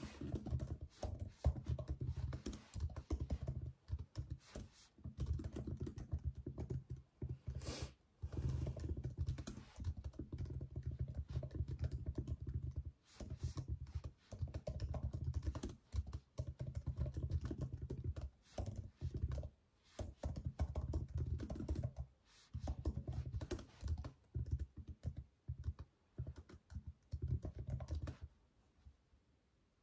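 Fast typing on a MacBook Air laptop keyboard: dense runs of key clicks with short pauses now and then, stopping near the end.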